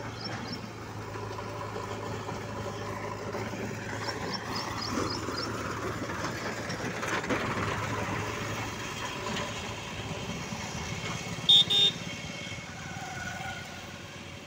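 Sonalika tractor's diesel engine running under load as it pulls a loaded trailer past, loudest as it goes by about halfway through. Two short horn beeps near the end.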